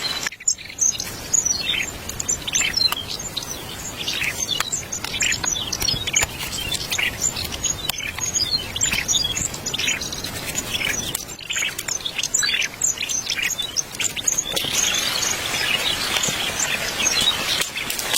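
Small birds chirping and twittering in quick, short notes, over steady outdoor background noise.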